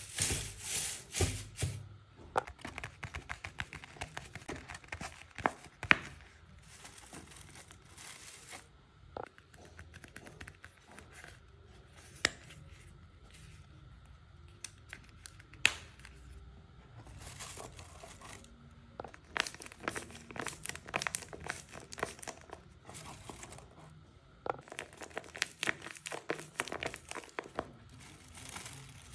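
Paper crinkling and rustling as hands work through shredded-paper box filler and handle paper craft pieces. The crinkling is loudest in the first couple of seconds, then comes in bursts on and off, with a few sharp taps.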